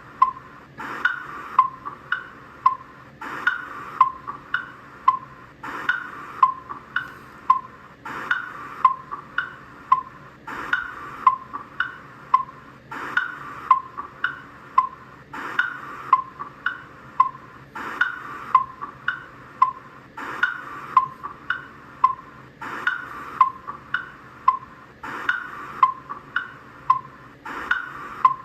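Cartoon sound effect of Tick-Tock the Crocodile's clock ticking: a hollow, clock-like tick-tock alternating a higher and a lower click about twice a second, repeating steadily as a loop.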